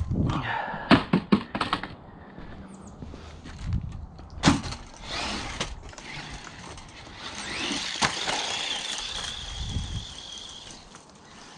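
Small 1:18-scale electric RC truck knocking hard several times as it takes hits, a quick cluster about a second in and single knocks around the middle. Then its electric motor whines, rising in pitch as it speeds up, and holds before dropping off near the end.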